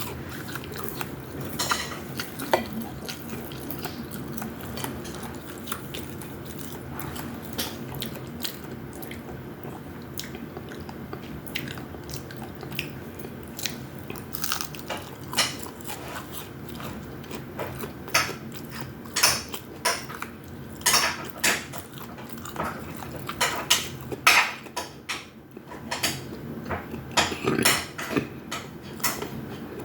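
Cutlery clinking and scraping against plates and bowls during a meal: scattered sharp clicks, growing more frequent in the second half, over a steady low hum.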